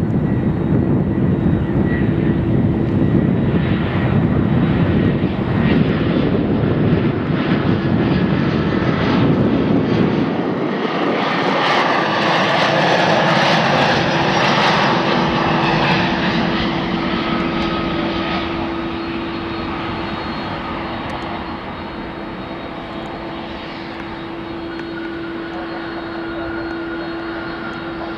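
A jet airliner's engines, loud as it goes past: a heavy low rumble gives way about ten seconds in to a broad rushing noise higher up, which fades over the last ten seconds. A steady droning tone runs underneath.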